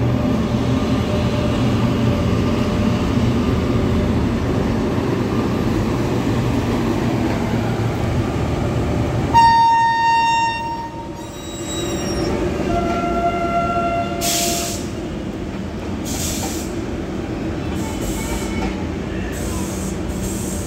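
An Indian Railways electric locomotive hauling passenger coaches passes close by, with a steady loud rumble. About halfway a train horn sounds for about a second and a half, followed by a shorter second tone. After that the coaches' wheels clatter over the rail joints again and again.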